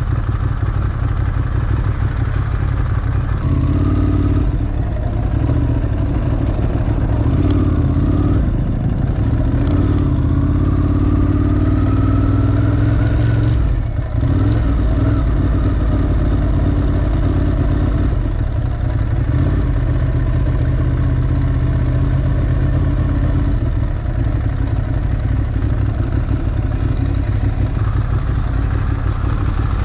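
Ducati Monster 821's L-twin engine with an Akrapovic exhaust, running at low speed with a steady low rumble. The revs rise for a few seconds about ten seconds in and drop off suddenly just after, then the engine runs on steadily at low revs.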